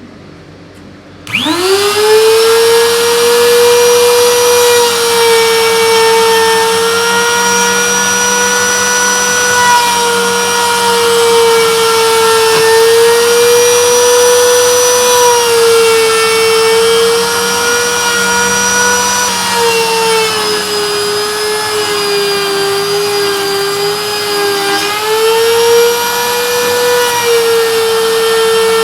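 CNC router spindle whine, starting about a second in and rising quickly to a high steady pitch, while a 6 mm compression bit mills wood. The pitch wavers slightly and sags for a few seconds about two-thirds of the way through before recovering.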